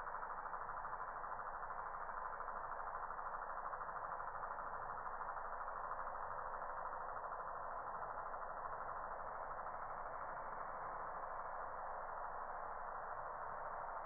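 A steady, unchanging buzzing drone with a fast pulsing texture.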